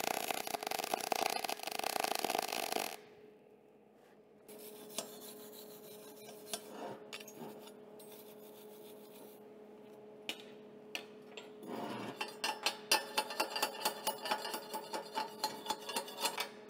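MIG welding arc crackling for about the first three seconds, then cutting off. After a few light handling clicks, a hand wire brush scrubs the fresh weld on the metal tubing from about twelve seconds in, in quick rasping strokes of about four a second.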